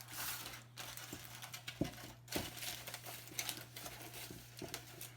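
Aluminium foil crinkling as it is pressed and folded over a cake pan, in scattered soft crackles, over a steady low hum.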